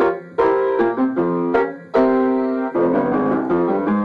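Ragtime piano music, with short chords over a bouncing bass line and two brief breaks in the playing, about a third of a second in and just before two seconds.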